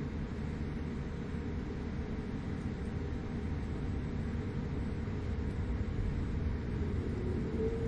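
Inside the cabin of a Boeing 787-9 airliner on the ground before takeoff: a steady low rumble of the engines and airframe. A faint steady whine grows in near the end.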